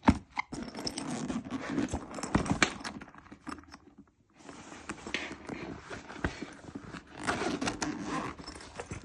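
Handling noise from a fabric tool bag: rustling and scraping with scattered clicks and knocks as it is opened and its pockets handled, pausing briefly about four seconds in.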